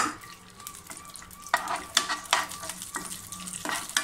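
Cashew nut pieces sizzling as they roast in a little fat in a nonstick frying pan. A metal spoon stirs them, scraping and tapping the pan several times.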